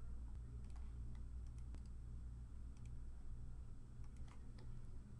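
Faint, scattered clicks of a computer keyboard and mouse as a link is pasted into a web form, over a steady low hum.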